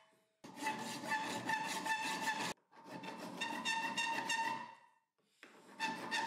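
Hand file scraping across the end of a metal threaded rod clamped in a vise: three long strokes of about two seconds each, with the rod ringing under each stroke, smoothing the freshly hacksawn end.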